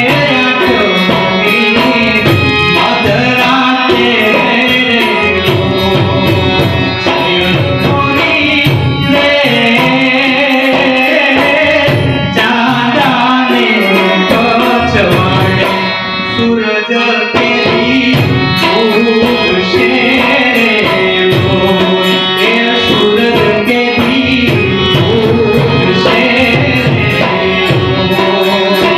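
Male singer singing a Gujarati folk song (lokgeet) into a microphone, accompanied by harmonium and tabla.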